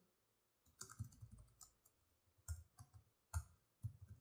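Computer keyboard typing: faint, irregular key clicks, a dozen or so with short pauses between them.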